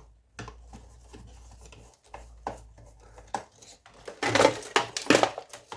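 Scrap electrical parts being handled and pulled apart by hand: scattered small clicks and rubbing, then louder rattling and scraping of metal and wire from about four seconds in.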